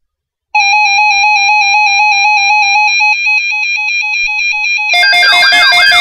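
NOAA weather radios sounding their alert alarms. About half a second in, one radio starts a loud high electronic tone that trills and then breaks into quick beeps. About five seconds in, a second radio joins with a siren-like alarm that rises and falls about twice a second.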